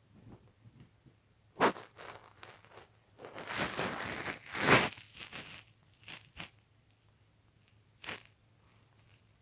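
Rustling and crinkling close to the microphone in short scratchy bursts, the longest and loudest about three to five seconds in while the phone is being moved.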